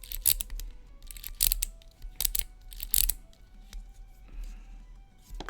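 Metal lock pick raked across the pin tumblers inside a lock: short scraping clicks in quick strokes, about one every second, quieter near the end.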